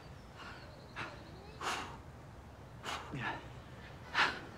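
Joggers breathing hard: five sharp, puffing breaths, roughly one a second, a couple of them carrying a little voice, the loudest near the end.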